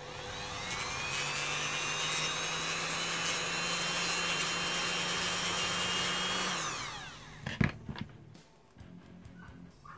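Handheld rotary tool with a cut-off disc spinning up with a rising whine, running at speed for about six seconds while cutting a small plastic part, then winding down with a falling whine. A sharp knock follows shortly after.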